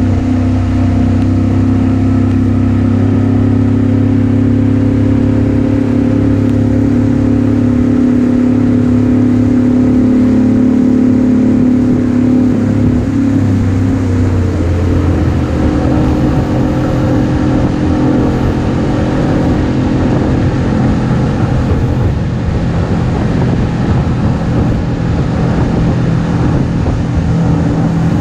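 Motorboat engine running under way at steady revs, its pitch dropping about halfway through as it is throttled back.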